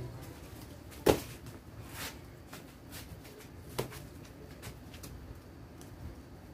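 Taekwondo kicks slapping into handheld kick paddles: three sharp smacks, the first, about a second in, the loudest.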